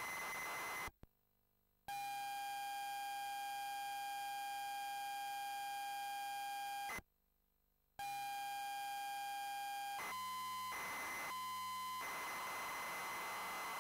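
ZX Spectrum tape-loading signal played into a TC2048-compatible computer: a short burst of harsh data screech, a one-second gap, a steady high pilot tone for about five seconds, another gap, and more pilot tone. About ten seconds in it turns into choppy on-off tones, then a continuous hissing data screech while the program loads.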